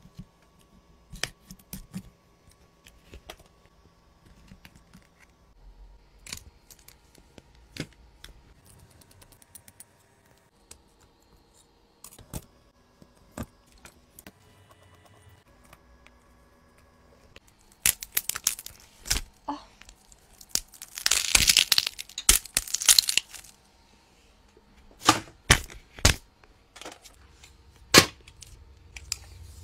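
Small clicks and taps of tools and parts on an opened iPhone during repair, with a few louder sharp snaps near the end. A little past the middle comes a loud tearing sound lasting about two seconds.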